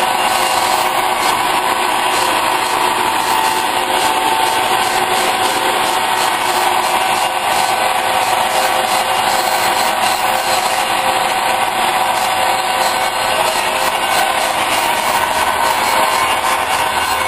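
Large metal lathe running steadily while a high-speed steel boring bar takes a cut on welded metal plate: a continuous machine hum and cutting noise with a few steady tones.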